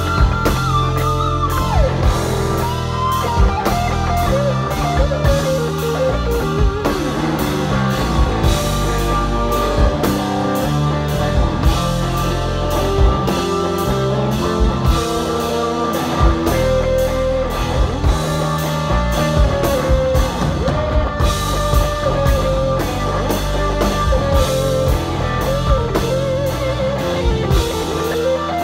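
Live blues-rock: a lead electric guitar solo of bending, gliding notes, with longer held notes in the second half, over a drum kit played steadily and hard.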